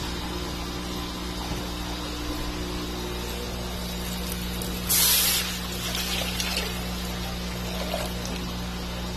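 Shrimp broth poured from one pot into a larger pot of sautéed garlic, splashing in loudly about five seconds in, then running on more thinly as a stream. A steady low hum runs underneath.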